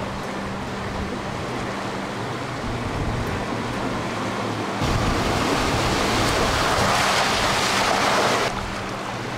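Off-road SUV driving a rough dirt trail, a steady low hum under road noise. About five seconds in, a much louder rushing noise starts suddenly and cuts off about three and a half seconds later.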